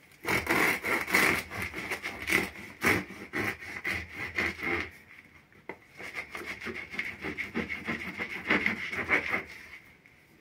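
Serrated bread knife sawing back and forth through the thin, crisp crust of a freshly baked wheat sourdough loaf, a rapid crackling rasp with a brief pause about halfway through.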